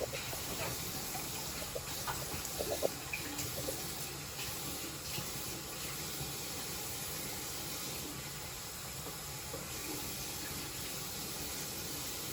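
Bathroom sink faucet running steadily into the basin, the water testing a newly installed drain for leaks. A few light knocks sound in the first few seconds.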